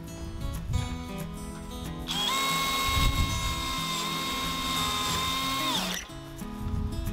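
DeWalt cordless drill whining steadily at one pitch for about four seconds as it drills into the sheet-metal stove pipe, then spinning down.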